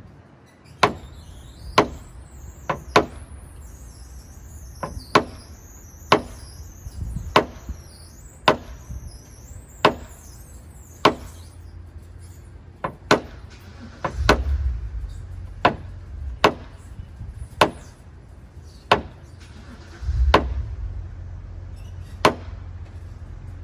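Sharp hammer taps on a paintless dent repair tool, about one a second, with a short pause partway through. A low rumble swells briefly twice in the second half.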